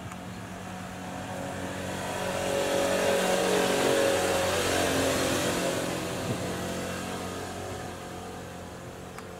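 An engine passing by: a mechanical sound that swells to its loudest around the middle and then fades away.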